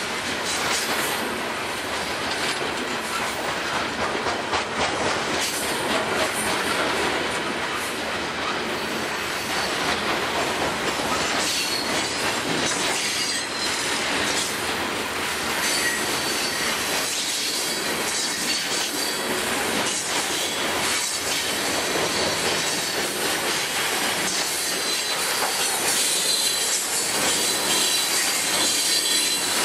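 Freight train of open-top hopper and gondola cars rolling steadily past, steel wheels rumbling and clicking over rail joints. A high wheel squeal joins about a third of the way in and is strongest near the end.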